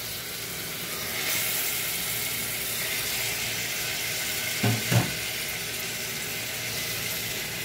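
Mutton pieces sizzling in hot oil and ghee in an aluminium pressure cooker: a steady frying hiss that grows a little louder after about a second. Two brief low bumps come about five seconds in.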